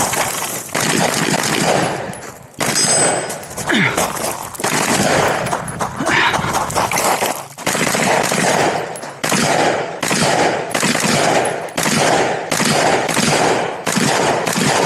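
Rifle shots fired in rapid succession during a timed competition stage, with a couple of brief lulls in the first half, then a steady string of about one to two shots a second through the second half.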